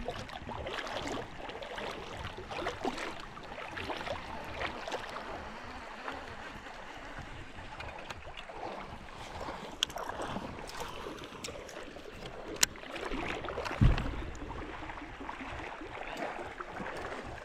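Moving water, with a few sharp clicks and one dull thump about fourteen seconds in.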